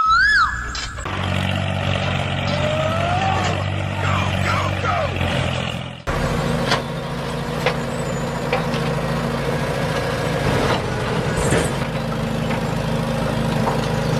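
Mini tractor engine running steadily, with a few squeals over it. About six seconds in it cuts abruptly to a similar running engine with scattered clicks and knocks.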